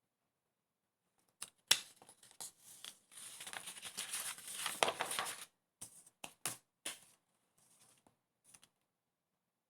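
Scratchy rustling and scraping from something being handled, with several sharp clicks, densest in the middle and trailing off into a few scattered clicks near the end.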